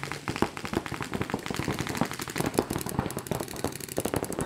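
Paintball markers firing rapid, uneven strings of sharp pops, with shots from more than one gun overlapping.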